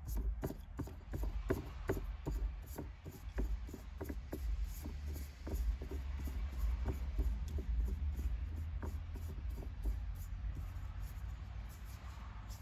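MTEC shift knob being screwed by hand onto the threaded shift shaft, its plastic threads rubbing and clicking irregularly, a few clicks a second, over a steady low hum.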